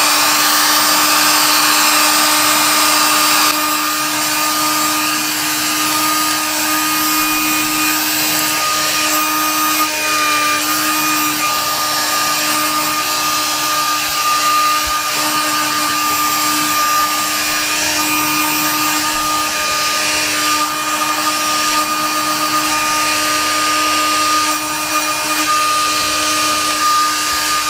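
Electric heat gun running steadily, a rush of blown air over a constant low motor hum and a higher whine.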